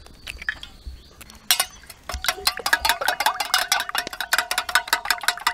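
A metal spoon beating eggs in a small stainless steel bowl: rapid, even clinking of spoon against bowl, about seven strikes a second, starting about a second and a half in, with the bowl ringing under the strikes. Before that, only a few faint taps.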